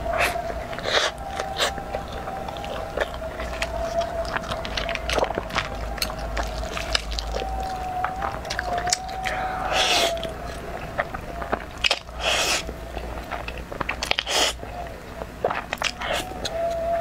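Close-miked eating sounds: wet mouth clicks and chewing of a seaweed-wrapped black rice ball, with several louder slurps of spicy fried noodles in the second half. A faint steady high tone sits underneath.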